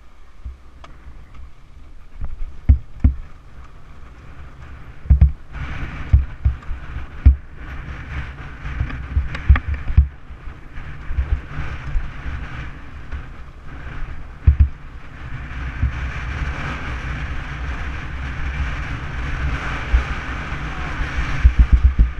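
A Honda CR500 two-stroke single-cylinder dirt bike ridden down a rough dirt trail, heard through a helmet-mounted camera: wind rumble on the microphone with many dull thumps from the bumps. The engine grows steadier and more audible in the last several seconds.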